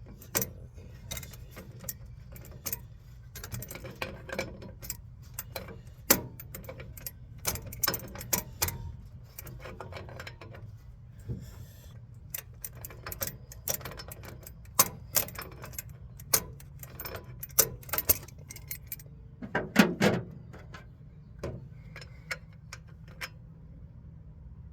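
Irregular metallic clicks and clinks of hand tools and metal parts being handled, with a louder clatter about 20 seconds in.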